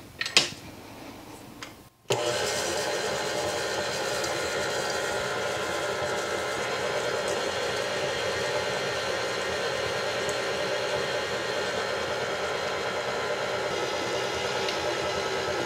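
KitchenAid stand mixer running steadily at an even speed, its flat beater creaming butter and sugar in a steel bowl. It starts abruptly about two seconds in, after a brief knock.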